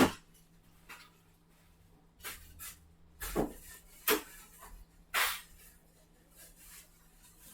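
About five separate short knocks and bumps, a second or so apart, over a faint steady hum.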